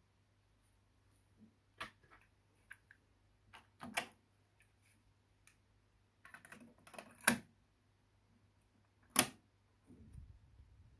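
Nakamichi Cassette Deck 1's cassette well and mechanism being loaded by hand: light plastic handling rattles, then two sharp clicks about seven and nine seconds in as the cassette goes in and the door shuts. A brief low rumble follows near the end as the deck's mechanism engages the tape.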